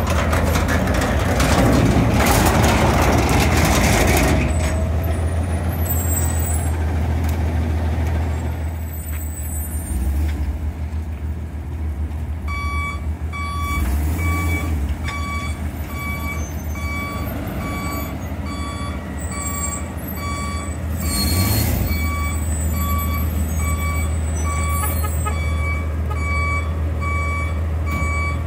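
Garbage truck's engine running, with a heavy burst of noise for the first four seconds; from about halfway its reversing alarm beeps steadily at about one beep a second, and a short hiss like an air brake comes near the three-quarter mark.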